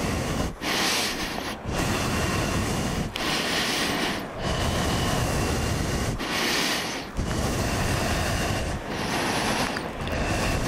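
Motorcycle engine running at low revs with a steady low rumble. A hiss swells and fades about every two and a half seconds, four times.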